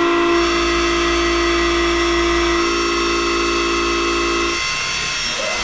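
CNC milling cutter cutting 4140 steel: a steady whine of several fixed pitches from the spindle and cutter. The deeper tones stop about four and a half seconds in while the higher whine goes on.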